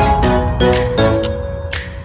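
Background music: an electronic track with a beat about twice a second under held pitched notes.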